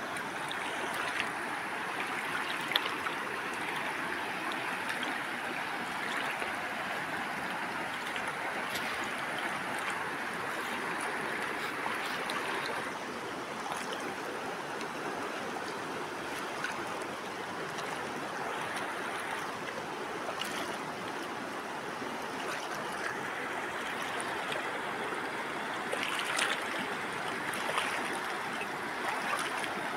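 Fast-flowing river running over stones and rapids: a steady, even rush of water, with a couple of brief clicks.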